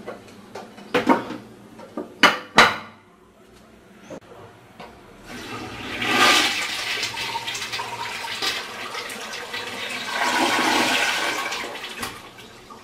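A close-coupled toilet is flushed. A few sharp knocks come in the first few seconds, then the rush of water starts about five seconds in, swells twice and tapers off near the end.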